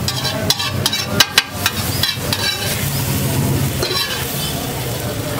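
Metal spatula scraping and clacking on a large flat griddle (tawa) while an egg mixture sizzles on it, with a quick run of sharp clicks in the first two seconds or so. A low steady hum runs underneath.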